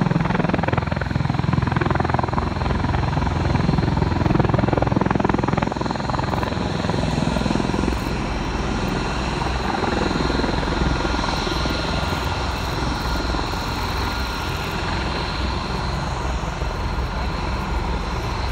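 Bell V-280 Valor tiltrotor hovering low with its proprotors in vertical helicopter mode: the steady noise of its two large rotors and turboshaft engines, with a deep rumble, a little louder in the first six seconds or so.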